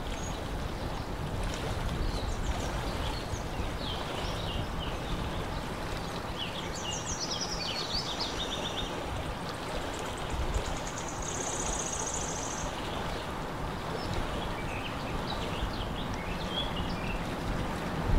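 Steady outdoor noise of wind and water on a lake, with a low rumble of wind on the microphone. Small birds chirp now and then, with a brief rapid trill a little past the middle.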